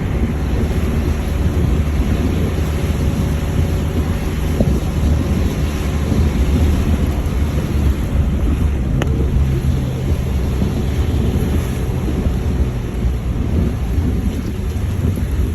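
Steady low rumble of a vehicle on the move, engine and road noise, with a faint engine hum in it. A short sharp click about nine seconds in.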